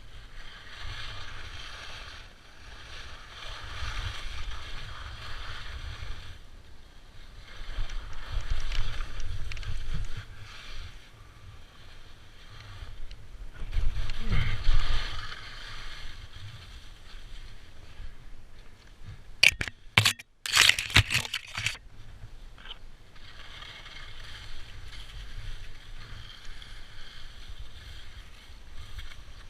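Snow hissing and scraping under a skier or snowboarder sliding downhill, swelling and fading with each turn, over a low rumble. A quick cluster of sharp knocks comes about twenty seconds in.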